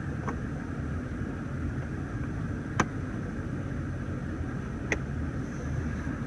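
Steady low rumble inside a car cabin, broken by two sharp clicks about two seconds apart, from the centre-console ashtray cover and cigarette lighter being worked.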